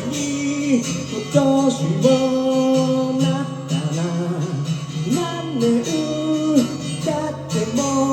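Singing to acoustic guitar accompaniment: a sung melody with long held notes and pitch glides over strummed guitar chords.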